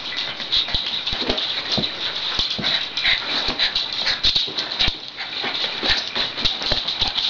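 Two small dogs play-wrestling: scuffling with many sharp irregular clicks and knocks, mixed with short dog vocal sounds.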